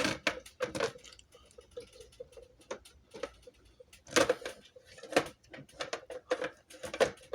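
Irregular clicks and knocks of a plastic exit sign and emergency light unit being handled, with a faint steady tone underneath.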